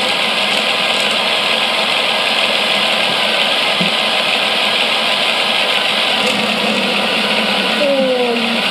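Mould King 11012 motorised toy roller coaster's electric motors and plastic drive train running with a steady whir. Its rubber drive wheels, slick with silicone spray, slip over the cars instead of pushing them along, so the cars stall.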